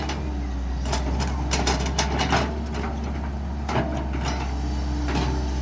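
Heavy machine engine running steadily, with scattered short clanks and knocks.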